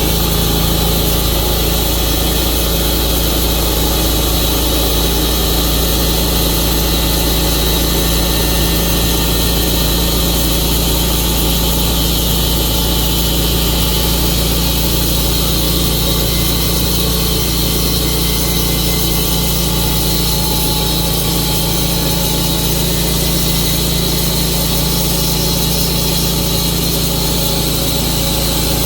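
Tru-Cut band sawmill running steadily on its engine, the blade sawing through a log.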